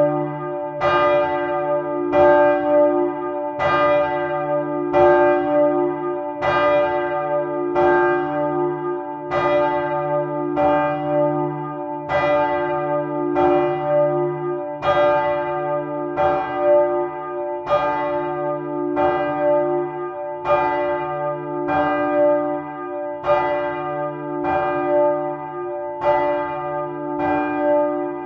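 A large bronze church bell cast by Michiels of Tournai in 1957, swinging and rung by its clapper. The strikes come steadily, well under a second apart, each ringing on, and a deep hum sounds beneath them all the way through.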